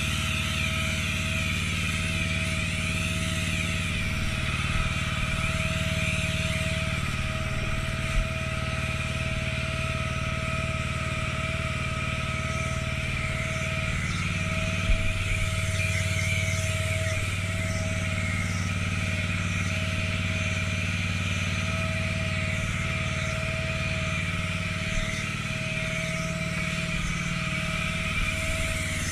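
Pressure washer running steadily: a constant engine drone under the hiss of water jetting from the lance onto stone patio slabs as they are rinsed. There are a couple of brief knocks.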